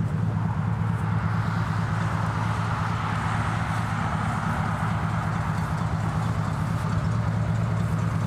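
Motor vehicle engine running steadily, with a swell of road traffic noise in the middle.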